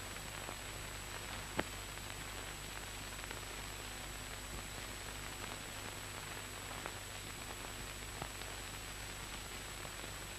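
Steady hiss of an old soundtrack with a low hum and a few faint clicks; no workshop sounds stand out.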